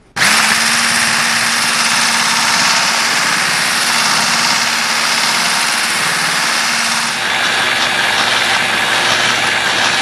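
Immersion blender with a whisk attachment switched on and running steadily, whisking a runny egg-and-honey mixture; the motor's hum shifts a little about seven seconds in.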